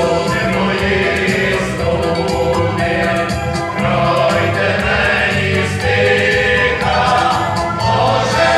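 Village choir singing a Ukrainian song in several voices, with low accompanying notes beneath.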